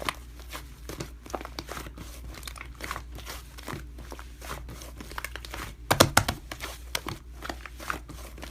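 Slime being worked by hand, giving a run of small crackling pops and clicks, with a louder cluster about six seconds in.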